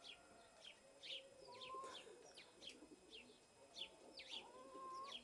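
Faint chirping of small birds: short high chirps repeated about twice a second.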